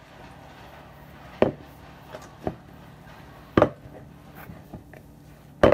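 Mixing in a large bowl: four sharp knocks against the bowl, a second or two apart, with faint handling in between.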